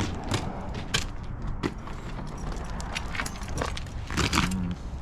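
Keys jangling, with irregular metal clicks and clinks from handling a worn door padlock; a louder cluster of clinks comes about four seconds in.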